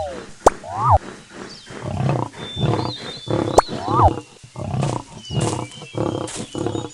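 A big cat roaring and growling in a string of short, rough calls, roughly one or two a second. A quick up-and-down chirping effect sounds about a second in and again about four seconds in.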